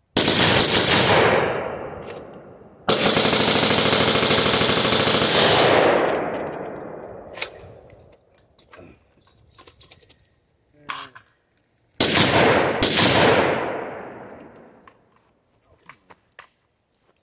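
AR-15 semi-automatic rifle bump-fired in three rapid strings of shots that sound like automatic fire. The second string is the longest, and each trails off in echo.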